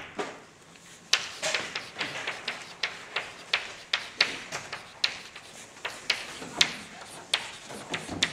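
Chalk writing on a blackboard: an irregular run of sharp taps and short scratches, a few a second, as letters are written. It is quieter for the first second.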